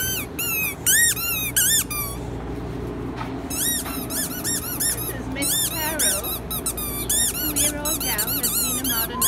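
A dog chewing a squeaky ball toy, squeezing out quick runs of high squeaks, each one bending up and then down in pitch, with a short pause about two seconds in.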